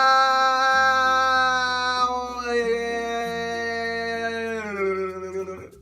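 Music: one long held note that slides down in pitch twice, over a bass line changing notes, cutting off suddenly near the end.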